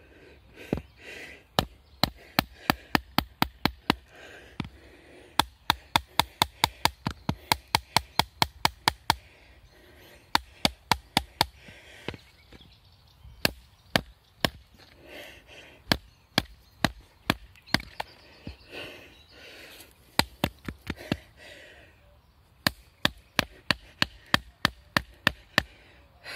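A wooden baton repeatedly striking the spine of an Albainox Glock-style field knife to drive it down through a log section (batoning). The sharp knocks come in runs of about three a second, with short pauses between the runs.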